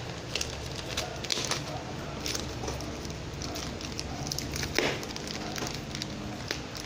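Plastic courier pouch crinkling and rustling as hands grip and pull at it, in irregular crackles and sharp snaps, the loudest a little before five seconds in.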